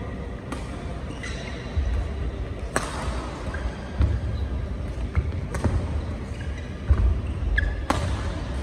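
Badminton rally: sharp racket strikes on the shuttlecock every one to one and a half seconds, with heavy footfalls and lunges on the court mat and a brief shoe squeak near the end.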